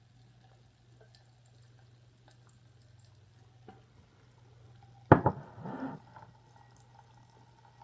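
A drinking glass knocking down hard against a hard surface about five seconds in, a single sharp clunk followed by a brief clatter; otherwise only a faint steady hum.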